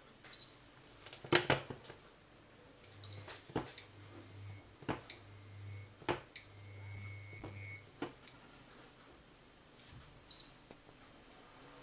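Small non-stick frying pan moved about on an Electrolux glass induction hob: several sharp knocks of the pan on the glass, the loudest about a second and a half in, and three very short high beeps from the hob. In between, a low electrical hum with a faint higher whine comes on three times, each for about a second, while the pan sits over a live induction zone.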